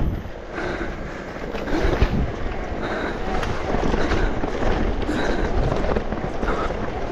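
E-mountain bike ridden along a rough trail: wind rushing over the camera microphone over a low rumble of tyres on dirt, with irregular rattles and knocks from the bike, the sharpest about two seconds in.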